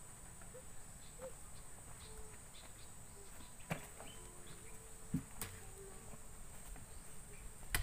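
Outdoor field ambience with a steady high-pitched insect drone, and a few sharp knocks of a hoe striking the mud, about halfway through, a couple of seconds later, and at the very end.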